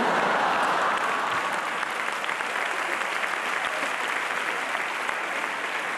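Theatre audience applauding, loudest at the start and slowly easing off.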